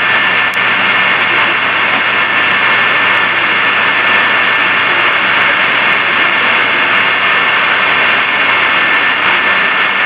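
Loud, steady hiss with its highs and lows cut away, the noise of a recording that has been high- and low-pass filtered and re-amplified; a faint, thin, steady tone runs through it.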